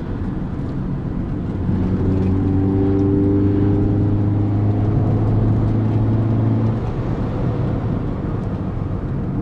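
Tyre and road noise of a Chevrolet Astra 2.0 on a wet highway, heard inside the cabin. From about a second and a half in, the four-cylinder engine comes up to a loud, steady drone under load for about five seconds as the car overtakes a lorry, then eases off.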